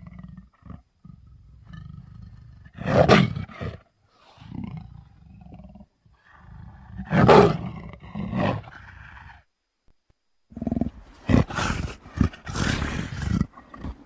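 A person's voice imitating a monster: low growling rumbles that swell into loud roars about 3 and 7 seconds in, then a quick run of short, choppy guttural bursts near the end.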